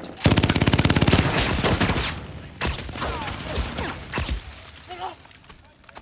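Automatic gunfire: a sustained rapid burst of about two seconds, then scattered shots that thin out and fade toward the end.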